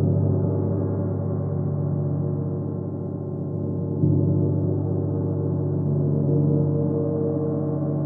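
31-inch Chinese white gong ringing in a sustained wash of many overlapping tones, kept going by strokes of a padded mallet. A fresh stroke about halfway through makes it louder again.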